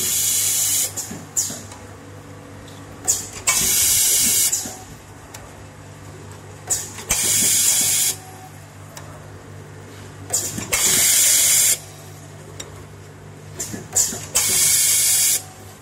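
Automatic double-spindle thread-tapping machine for T sleeve nuts running its cycle: a steady low hum with light clicks of the mechanism, broken every three to four seconds by a loud hiss about a second long, five times in all.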